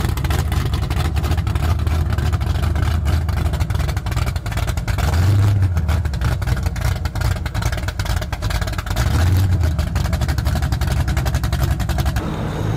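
Speedboat engine idling and pulling away at low speed, its exhaust a loud, deep, rapid uneven pulsing that swells briefly about five and nine seconds in.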